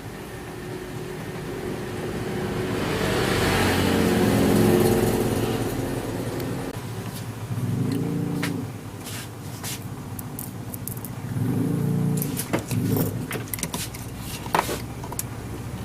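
An engine running, swelling to a peak about four seconds in, with two short louder surges and some sharp clicks and knocks later on.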